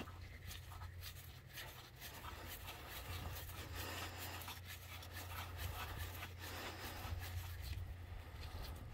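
Faint rubbing and small metallic clicks of a hand wrench and gloved hand loosening the hold-down nuts on a Caterpillar 3406 Jake brake housing, over a steady low hum.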